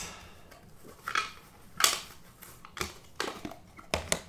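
Trading-card packaging being handled: irregular short scrapes and clicks as a card is slid out and turned over, about five or six in a few seconds.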